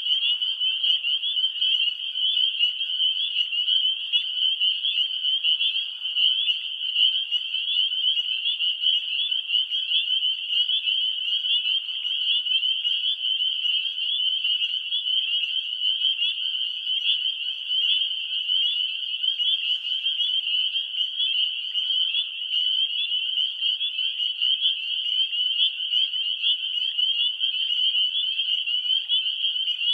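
A dense chorus of frogs calling: many high-pitched calls overlapping into one continuous trilling din that never breaks.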